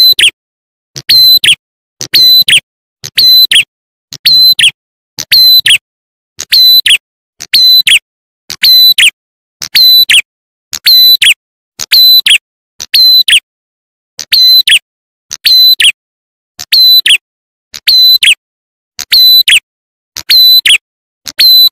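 Looped lure-call recording (suara pikat) of a small songbird, the prenjak atas / ciblek klawu: short, sharp, high calls with a falling tail, repeated in quick pairs about once a second without a break. It is a calling bird played to draw wild birds of the same kind in.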